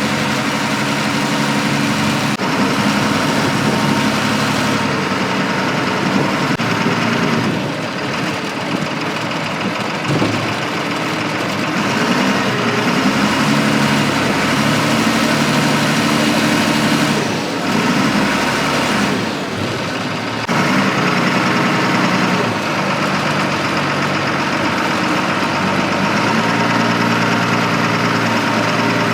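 Articulated wheel loader's diesel engine running, its speed rising and falling repeatedly as the machine is driven and worked.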